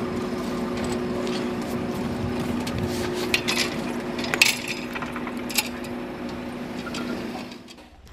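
Metal clinks and knocks of jointed cleaning rods being handled against an armored vehicle, a few sharp ones around three to five and a half seconds in, over a steady low hum. The sound drops away near the end.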